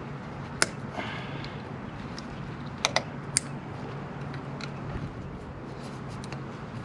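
Small metal clicks of a hand tool working the tie wire on a diesel injection pump's retaining plate screws: one sharp click about half a second in, three more around the three-second mark, and fainter ticks between. A steady low hum runs underneath.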